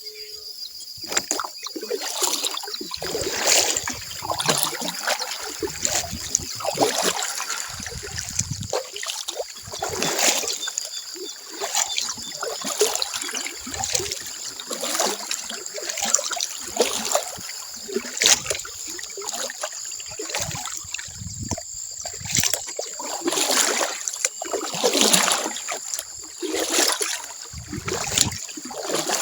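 Kayak paddle strokes dipping and splashing in the water every second or two, over a steady high-pitched chorus of dawn wildlife.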